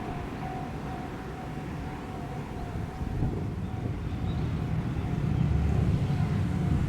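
Japanese railway level-crossing alarm ringing in a steady repeating pattern, with a low rumble growing louder about two-thirds of the way in.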